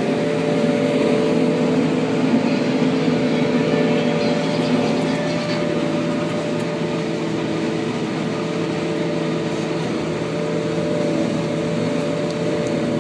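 Engine of corn silage harvesting machinery running steadily at a constant speed.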